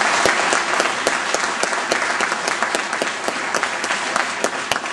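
Audience applauding: many hands clapping densely, easing off slightly near the end.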